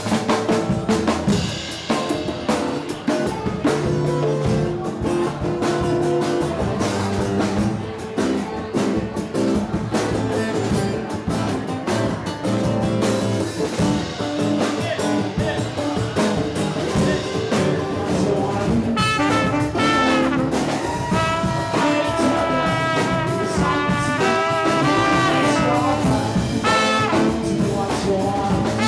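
Live band playing an instrumental passage with drum kit and brass horns; the horn lines stand out more strongly in the second half.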